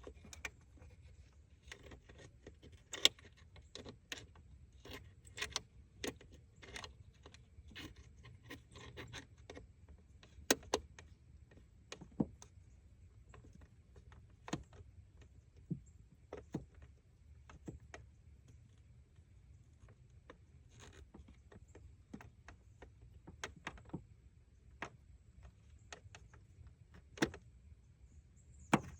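Irregular clicks, clinks and knocks of hand tools and small metal parts being handled, about one or two a second, over a faint low steady hum.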